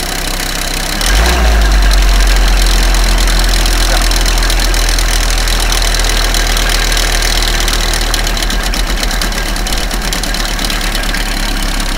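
Jeep Grand Cherokee WJ's 3.1-litre five-cylinder turbodiesel running, with an odd noise that the owner suspects comes from the belt tensioner, alternator or vacuum pump and that he finds much stronger cold and gone with a little throttle. About a second in the engine gets louder and stays up, easing off slowly.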